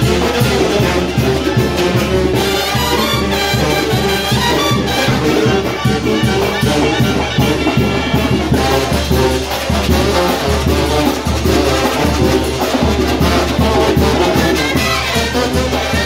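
A live Mexican brass band plays a Latin dance tune at full volume: trumpets, clarinets, saxophones and sousaphones over a conga, drum kit and timbales, with a metal güiro scraped in rhythm.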